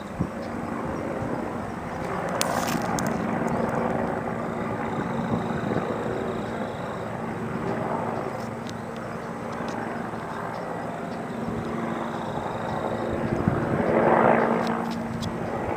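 Steady engine drone with a low hum, swelling about fourteen seconds in.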